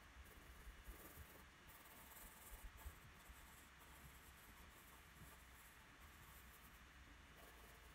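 Faint scratching of a graphite pencil shading on drawing paper, in a run of short strokes.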